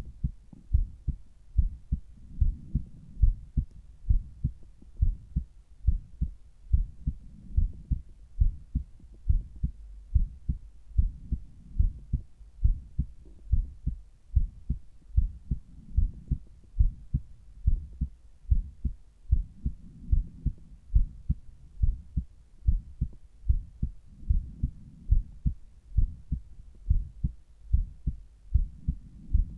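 Heartbeat heard through a Littmann Cardiology IV stethoscope on the left side of the chest: steady, regular low beats, with a soft low rushing that swells every four to five seconds.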